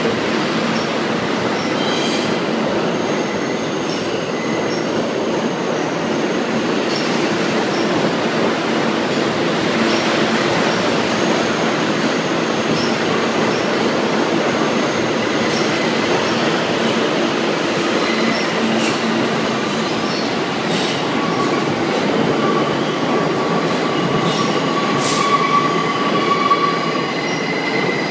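NYC Subway R160B train with Siemens propulsion departing an underground station, its cars rumbling steadily past the platform with wheel squeal. A strong steady squealing tone comes in near the end, with a single sharp click shortly before it.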